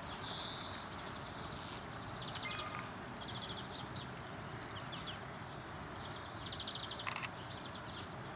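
Insect chirping: short, rapidly pulsed chirps repeating every second or two over a steady background hiss, with one brief click near the end.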